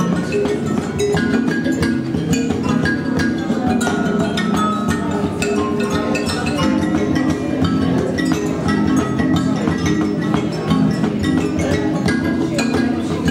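Music on struck and plucked percussion instruments: a busy run of short ringing notes mixed with sharp clicks and knocks over a steady low hum.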